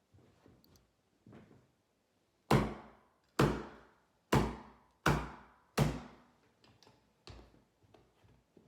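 Staple gun firing five times in quick succession, about one shot a second, fastening a carpet runner to a stair, with a few fainter knocks of handling around them.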